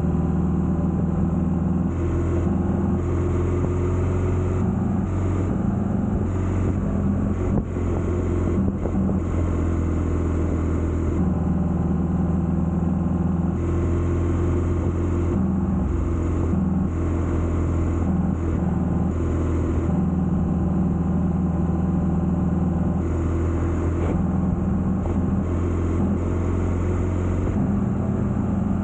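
Motorcycle engine running steadily while riding at road speed, its low note wavering a little several times as the throttle changes.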